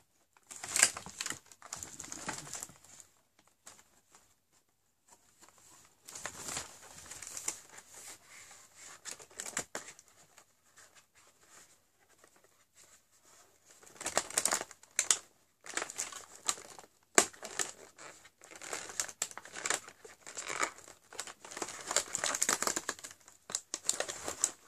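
Cardboard and packaging crinkling and tearing as a door of a cardboard toiletry advent calendar is opened by hand, in three bouts with short quiet pauses between.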